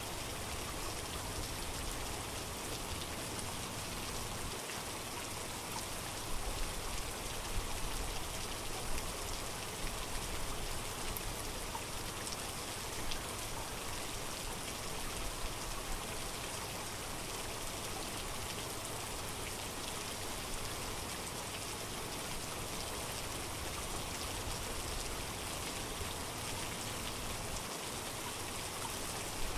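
Steady rain falling, a dense even hiss of drops with a few brief louder splashes in the first half.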